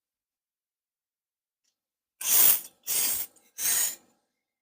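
Three short, scratchy, rasping noises about two-thirds of a second apart, starting about two seconds in; the first is the loudest.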